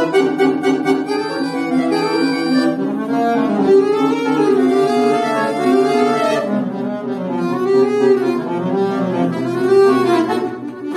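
Solo chromatic button accordion playing a fast passage of quick rising and falling runs over sustained lower notes, with a brief drop in volume near the end.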